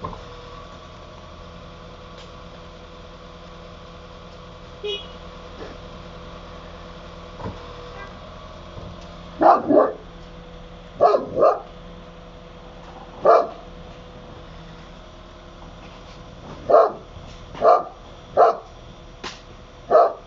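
Akbash dog barking at a fence: about nine barks beginning about halfway through, the first few in quick pairs, then single barks a second or so apart.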